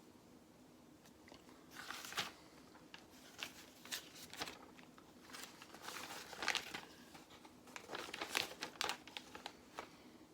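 Small plastic Lego pieces being handled and sorted, clicking and rattling in several short bursts with some crinkly rustling.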